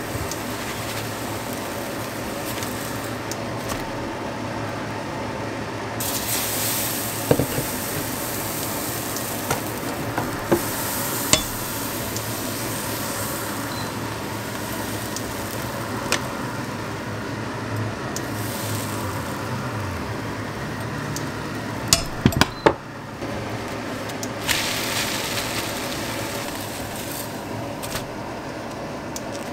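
Thin pancakes frying in a stainless steel pan: a steady sizzle with several louder hissing surges, as when batter goes into the hot pan. Scattered clinks and knocks of the pan and a plastic spatula come through, with a quick run of sharp knocks past the middle.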